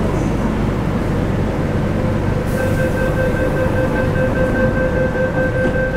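Low, steady rumble inside an MTR CNR Changchun EMU C-train on the Kwun Tong Line. About halfway through, a steady high tone joins it and cuts off suddenly near the end.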